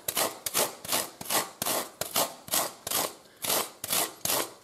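A large coarse rasp is stroked back and forth over a black foam knee-roll block, shaving it to shape and taking the ridges off. It goes as a steady run of short scraping strokes, about two and a half a second.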